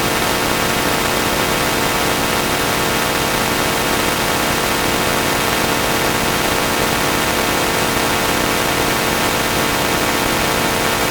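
Harsh, digitally processed audio from a 4ormulator-style effect chain: a loud, unbroken wall of distorted noise with many held tones stacked through it.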